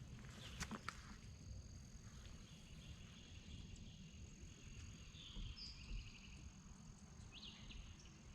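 Faint outdoor dawn ambience: scattered short songbird chirps and trills, with a steady high-pitched insect drone over a low rumble. A few sharp clicks sound just under a second in.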